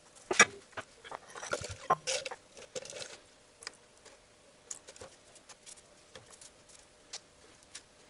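A thin metal tool scraping and clicking against a pair of CVT oil-pan magnets while they are washed in a bucket of dirty liquid, with small splashes. The sharp clicks are loudest and densest in the first three seconds, then thin out to occasional single ticks.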